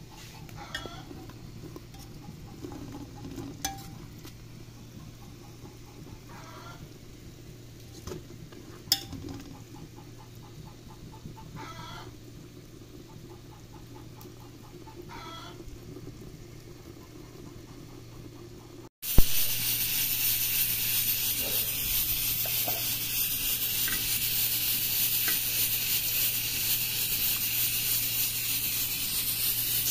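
Chickens clucking now and then for most of the first twenty seconds, over a faint steady hum. Then a sudden cut to loud, steady sizzling of hot fat frying in an aluminium pot.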